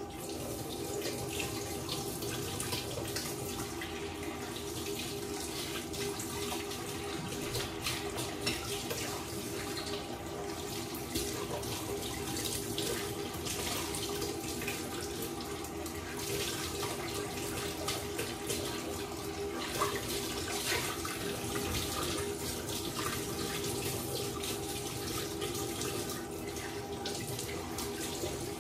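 An egg sizzling in hot oil in a frying pan. The sizzle starts abruptly and goes on steadily with many small crackles and pops, over a steady hum.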